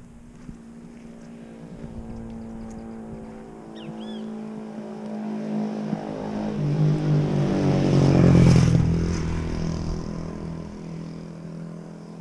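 A motor vehicle passing by on the road: engine sound building slowly, loudest about eight and a half seconds in, then fading away, its pitch dropping as it goes past.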